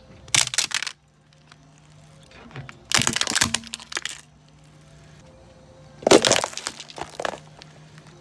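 Three bursts of crunching and cracking, about three seconds apart, as brittle objects are crushed under a car's tyres, over a steady low hum.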